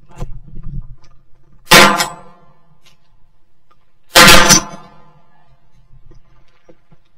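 Two shotgun shots about two and a half seconds apart, fired at a wood pigeon in flight, each a sharp, loud blast with a short ringing tail. They are picked up by a camera mounted on the gun, with handling rumble before the first shot.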